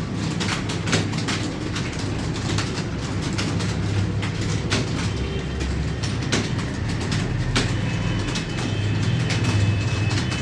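Several computer keyboards being typed on at once, a dense irregular clatter of key clicks over a steady low hum.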